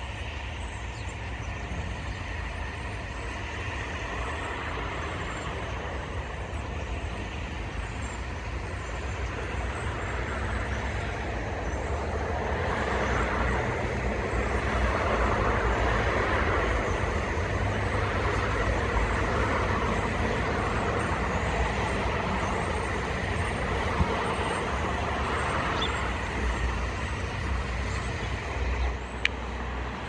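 Road traffic running steadily, a low rumble with a wider hiss that grows louder about halfway through and stays up.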